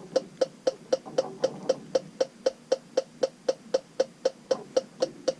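Background music with a steady ticking, wood-block-like beat, about four ticks a second.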